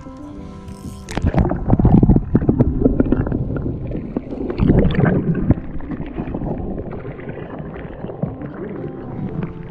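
Muffled gurgling and rumbling water with a microphone plunged underwater, loudest from about a second in until past the middle. This is followed by quieter splashing and sloshing as a hooked fish thrashes at the surface beside a boat.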